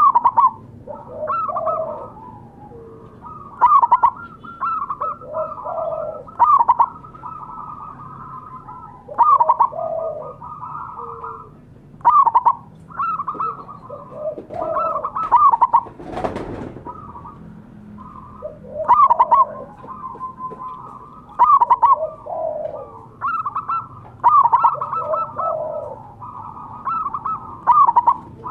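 Zebra dove (perkutut) cooing: repeated rapid, staccato cooing phrases, one after another every second or two. A brief rustling noise about halfway through.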